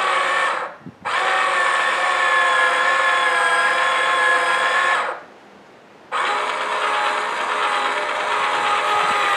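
Toy plastic pottery wheel's small electric motor running with a steady whine as clay is centered on it. It cuts out twice, briefly about a second in and for about a second in the middle, then starts up again.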